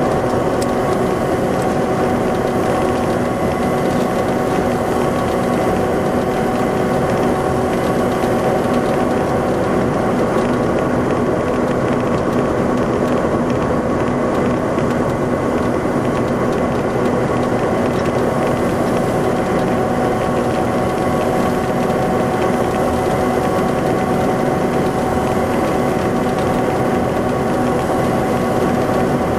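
Detroit Diesel Series 60 EGR inline-six diesel engine of an MCI D4500 coach, running steadily at an unchanging pitch.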